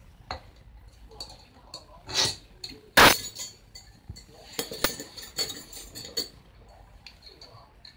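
Metal hand tools clinking and knocking against each other and on a wooden floor as they are set down and picked up: a scatter of short sharp clicks, with one loud knock about three seconds in and a cluster of lighter clinks a little later.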